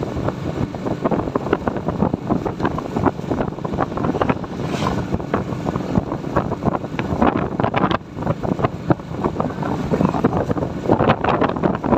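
Wind buffeting the microphone of a moving motorcycle in irregular gusts, with the motorcycle's engine and road noise running steadily underneath.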